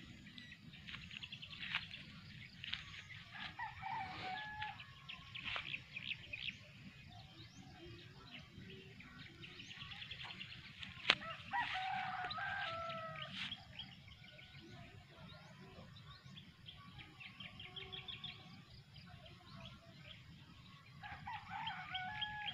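Roosters crowing about three times, the loudest near the middle, over a steady chatter of small birds chirping. A single sharp click comes just before the loudest crow.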